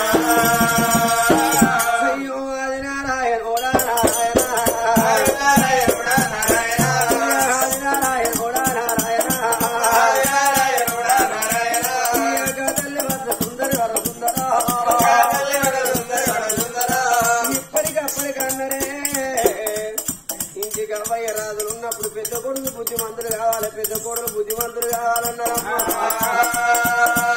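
Telugu Oggu Katha folk singing: a voice sings in long, held, wavering phrases over a fast, steady jingling rattle and drum beat.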